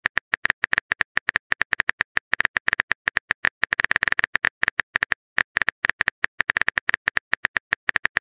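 Simulated keyboard typing sound effect: rapid, irregular key clicks, several a second, with a short pause about five seconds in.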